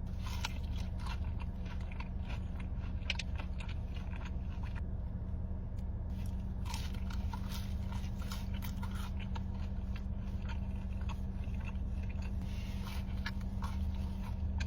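Close-up chewing and biting of food, a dense run of small crunchy, wet mouth clicks with a short lull about five seconds in, over a steady low hum.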